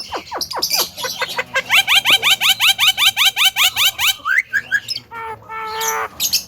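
Javan myna (jalak kebo) calling: a few quick falling whistles, then a fast run of rising chirps at about seven a second for a couple of seconds, then looser calls.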